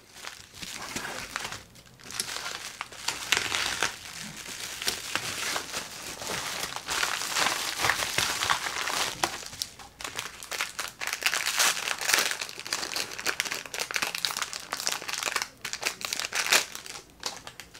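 Plastic packaging crinkling and rustling as a yellow bubble mailer is handled and opened and small clear plastic bags are taken out, with many irregular crackles.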